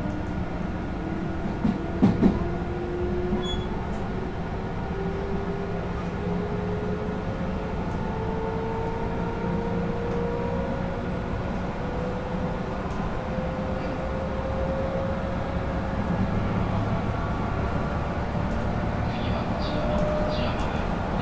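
MT64 traction motors of a JR West 221 series train, heard from inside the motor car, growling with a steadily rising whine as the train gathers speed. The rumble of the wheels on the rail runs under it, with two sharp knocks about two seconds in.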